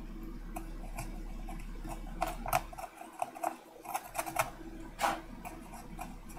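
A hand blade scraping and cutting into the burnt fibreglass of an amplifier circuit board, a run of short, irregular scratches and clicks. The blade is cutting away charred board that has turned conductive.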